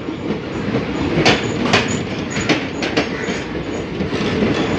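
An express passenger train passing at speed: a steady rolling rumble with sharp wheel clacks over the rail joints, coming every half second or so.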